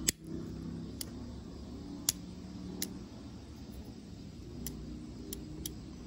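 A sharp snap right at the start as a GOAT Tool multitool's wire cutters, their cutter heads sanded thin, cut through a thin wire. It is followed by a handful of lighter metallic clicks from the tool's jaws and handles, one louder about two seconds in, over a steady low hum.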